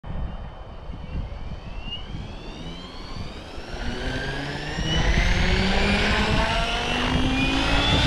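OMPHOBBY M7 electric RC helicopter spooling up on the ground: the motor and rotor whine rises steadily in pitch as the head speeds up, growing louder about five seconds in. Strong wind buffets the microphone throughout.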